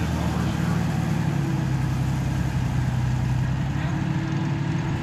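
Large military truck engine running steadily at low speed as the heavy army wrecker truck drives slowly past at close range. A second, higher engine tone joins in about three and a half seconds in.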